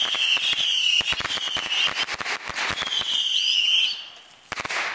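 Consumer firework cake firing: a steady high whistle, sinking slightly in pitch and breaking off once, over rapid crackling pops. It dies down about four seconds in, with a last few sharp bangs near the end.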